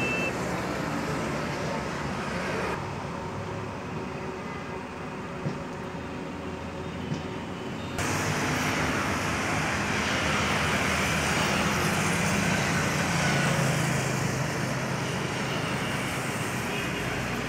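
Road traffic noise: vehicles running along a highway, a steady rush with a low engine hum. It goes duller about three seconds in and comes back fuller about eight seconds in.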